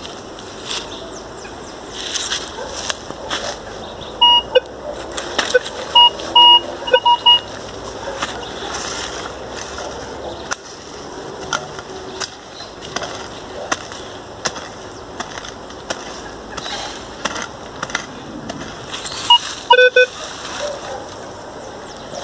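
Minelab Vanquish 440 metal detector giving short beeps as its coil is swept over the ground, signalling a buried metal target: a run of higher beeps about four to seven seconds in and lower-pitched beeps near the end. Dry leaf litter crackles and rustles under the coil and feet throughout.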